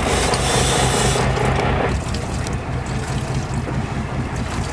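Fishing boat's motor running steadily, with wind and water noise. A higher hum in the engine sound drops out about two seconds in, and the whole sound gets slightly quieter.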